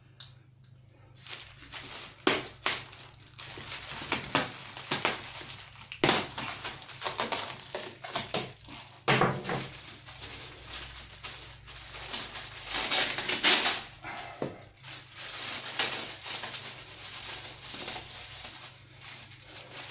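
Plastic packaging crinkling and rustling as parts are unwrapped by hand, with irregular clicks and knocks, loudest about two-thirds of the way through.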